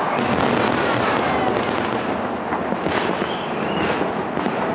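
Aerial fireworks going off: a dense run of sharp pops and bangs over a continuous crackling wash, with a few faint gliding whistles.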